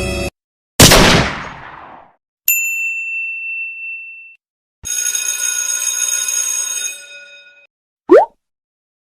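A run of separate cartoon-style sound effects. First a loud noisy crash that dies away over about a second, then a single clear ding, then a bright ringing tone held for about three seconds, and near the end a quick upward whistle glide.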